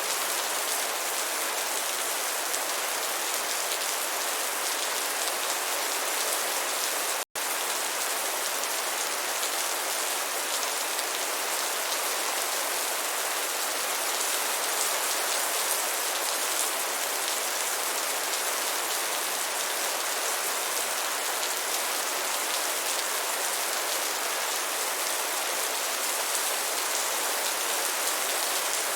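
Rain falling steadily, an even hiss of drops. The sound cuts out completely for an instant about seven seconds in.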